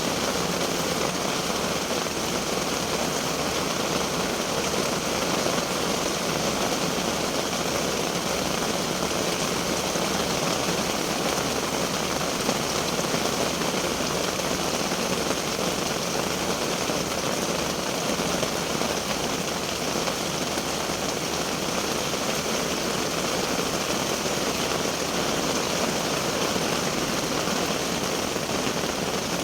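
Steady rain falling on a small tent, heard from inside it as an even, unbroken hiss.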